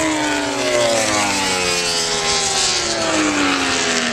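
Racing motorcycles going past at speed, their high-revving engine notes falling slowly and steadily in pitch.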